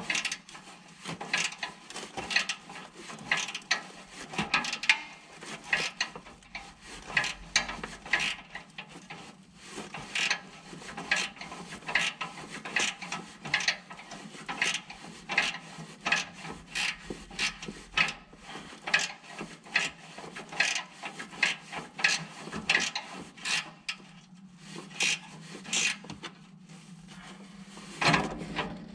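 Hand ratchet wrench clicking in quick, repeated strokes, about two a second, over a steady low hum. The strokes pause briefly about 24 seconds in and stop near the end.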